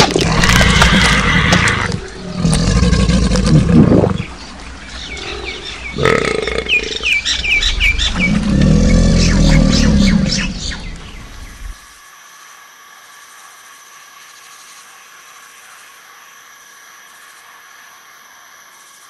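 Cartoon creature sound effects: loud growling and chewing as a sail-backed predator eats the Tiktaalik, with a quick run of high chirps around six seconds in. At about twelve seconds it cuts to a faint, steady hiss.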